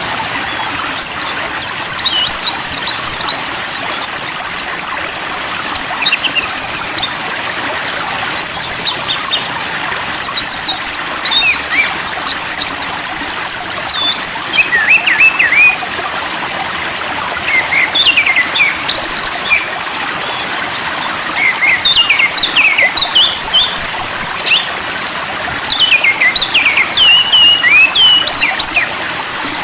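Songbird chirping and whistling in fast, varied phrases of short sweeping notes over the steady rush of running water. It is a bird-therapy track meant to calm a molting or stressed magpie-robin.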